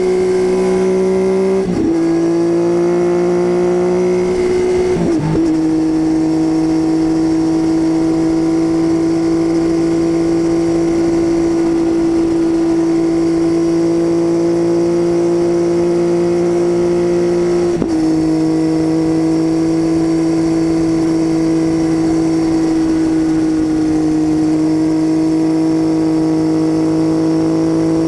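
Triumph Tiger 800's three-cylinder engine running through an unbaffled titanium Leo Vince exhaust, a steady drone at cruising revs. Three brief breaks, about two and five seconds in and again about eighteen seconds in, are followed by a slightly lower pitch, as in upshifts.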